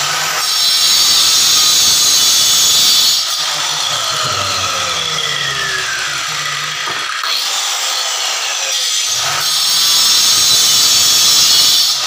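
Handheld electric marble cutter with a cutting disc slicing thin marble strips: a continuous high-pitched grinding whine, louder during two cutting passes, about half a second in and again from about nine and a half seconds, with the motor's whine falling in pitch between them.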